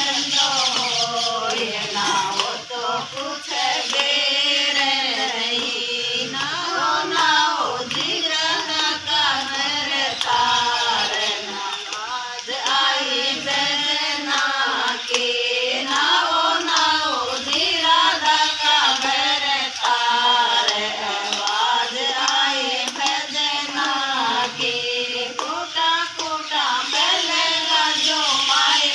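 A group of women singing a Hindi devotional bhajan together, with hand-clapping along to the song.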